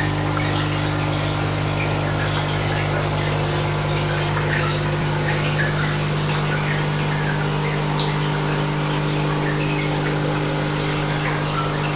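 Water trickling and bubbling through the plumbing of a rack of betta fish tanks, over a steady pump hum.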